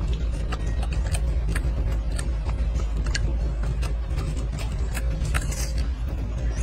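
Golden snub-nosed monkey chewing food close up: crisp, irregular clicks about one or two a second over a steady low rumble.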